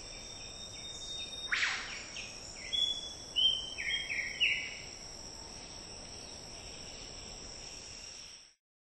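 Steady high-pitched insect chorus, with a run of short whistled notes over it, the loudest a sharp falling note about one and a half seconds in. The sound cuts off shortly before the end.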